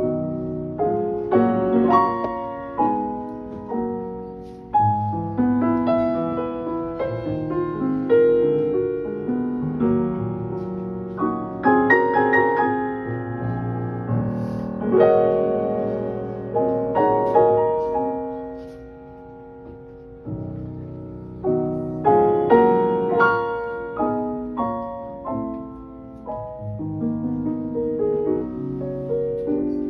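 Jazz piano playing a slow ballad: chords and melody lines, each note struck and left to ring out. It dips briefly quieter about two-thirds of the way through.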